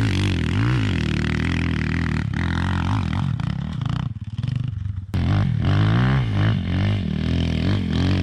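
Husqvarna 250 enduro motorcycle engine running with repeated throttle blips, the pitch rising and falling again and again. It drops away briefly about four seconds in, then picks up with more revving.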